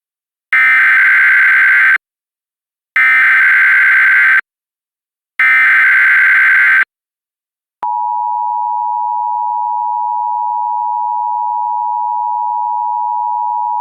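Emergency Alert System tones: three identical bursts of SAME digital header data, a warbling screech each about a second and a half long with a second's silence between. About 8 s in, the steady two-tone EAS attention signal (853 and 960 Hz) starts and holds, heralding the next dust storm warning.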